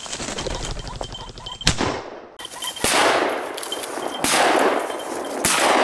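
Several shotgun shots at a flushing pheasant, about four in four seconds. The first is the sharpest crack, and the later ones each trail off in a long rolling echo.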